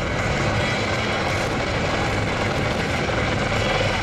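MV-22B Osprey tiltrotor flying low with its nacelles tilted up: a loud, steady drone from the prop rotors and twin Rolls-Royce Liberty turboshaft engines, with a low pulsing throb underneath.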